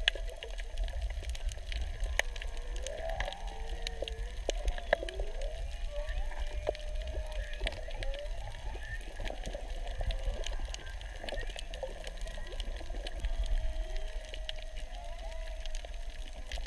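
Humpback whale song heard underwater: a string of moans and whoops that glide up and down in pitch, one after another, over scattered sharp clicks and a low rumble of water.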